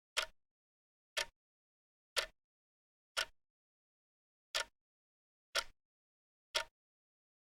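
Clock ticking about once a second, each tick a short sharp click, with one slightly longer pause about halfway through.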